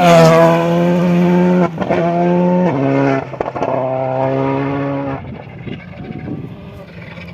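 Volkswagen Polo GTI R5 rally car's 1.6-litre turbocharged four-cylinder engine at speed on gravel, passing close by with its note bending down at the start. The engine note cuts briefly twice in quick gear changes. It drops away and fades after about five seconds as the car drives off.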